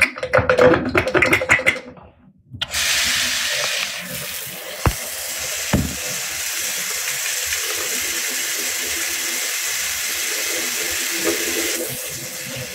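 Water running from a tap, a steady hiss that starts about two and a half seconds in and drops away near the end, with a couple of small knocks partway through.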